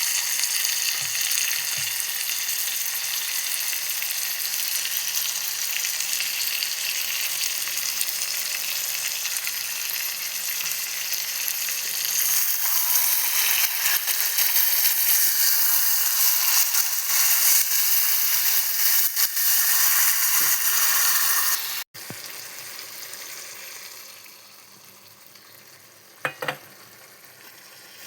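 Chicken sizzling as it fries in a pan, a steady hissing sizzle. It cuts off abruptly about three-quarters of the way through and carries on much softer, with a single short clack near the end.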